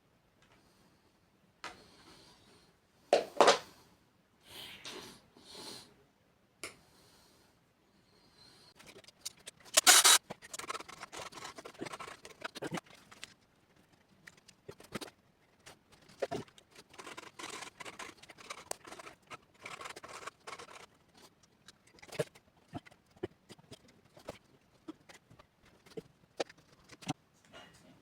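Hand work on small parts: irregular scraping and rubbing with scattered sharp clicks and knocks, the loudest about three and ten seconds in.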